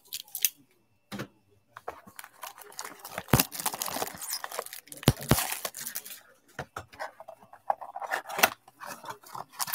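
A trading-card box being unwrapped and worked open by gloved hands: wrapping tearing and crinkling, with scattered clicks and a few sharp knocks of the box against the table around the middle.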